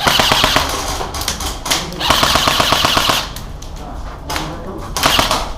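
Airsoft electric guns firing on full auto in rapid clattering bursts. There are two long bursts of a second or more each in the first three seconds, then two short bursts near the end.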